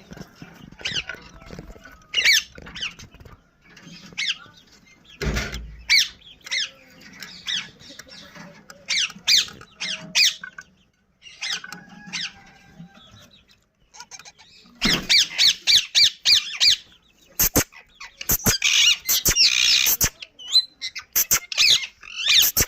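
Parrot chicks squawking at feeding time: many short, high calls that slide in pitch, becoming louder and more crowded from about two-thirds of the way through. A single thump about five seconds in.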